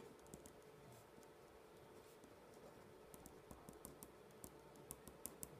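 Faint scratching of a ballpoint pen writing on lined paper, with small ticks of the pen strokes coming more often in the second half, over near-silent room tone.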